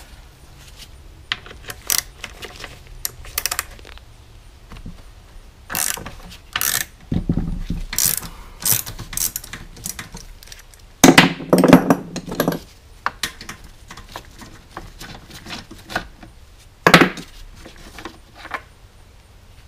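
Hand socket ratchet clicking in short runs as bolts are loosened, mixed with clinks and clatter of metal tools and parts. The loudest clatters come a little past the middle and again about three seconds before the end.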